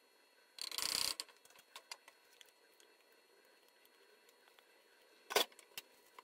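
Kitchen handling sounds: a short rush of noise about a second in, a few light clicks, and a sharp knock near the end, as cream is added to a frying pan and seasoned.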